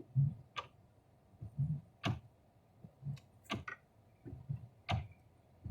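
Regular clicking inside a car's cabin: a soft low knock followed by a sharp click, repeating about every second and a half.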